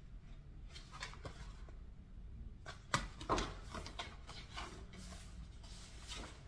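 Faint rustling and light clicks of an album's paper pages being handled and turned, with a sharper click about three seconds in.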